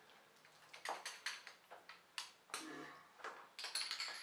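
Faint clicks and knocks from handling a Blichmann Beer Gun and a glass beer bottle during bottling, a string of separate taps, with a brief hiss near the end.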